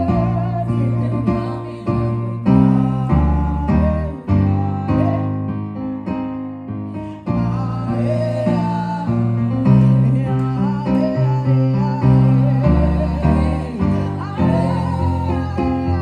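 Live gospel worship music: keyboard chords and a bass line under singing voices.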